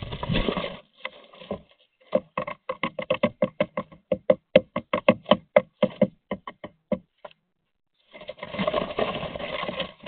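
A common starling moving about inside a wooden nest box: a scrabbling flurry of wings and feet against the walls, then a run of sharp taps and clicks, several a second, as it works in the nest material, and another scrabbling flurry near the end.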